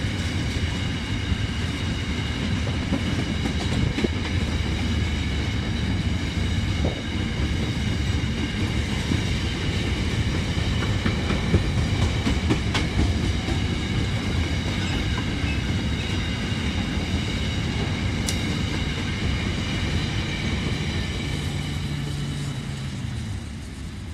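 Loaded coal wagons of a long freight train rolling past: a steady rumble with occasional wheel clicks over the rail joints and a steady high-pitched whine. It fades near the end as the last wagon goes by.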